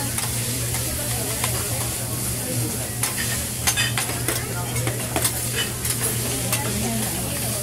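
Fried rice sizzling on a hot teppanyaki steel griddle while a metal spatula scrapes, chops and taps against the steel in quick, irregular clicks. A steady low hum runs underneath.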